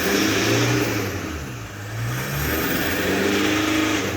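Toyota Hilux 3.0 diesel engine running just after starting, its revs rising and falling a few times. It runs smoothly, with the loose water pump that caused the customer's complaint now replaced along with the accessory belt.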